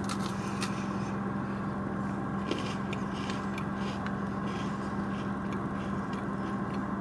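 Crunching and chewing of a crisp chocolate sandwich cookie with a cashew-butter filling, with faint crunches near the start and again about three seconds in, over a steady low hum inside a car.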